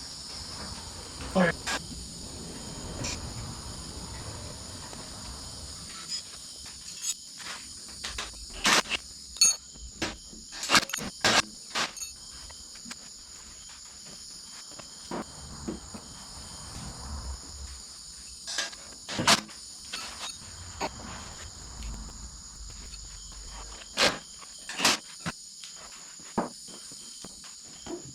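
Crickets chirping steadily, with scattered sharp knocks and clicks throughout, the loudest of them near the middle and toward the end.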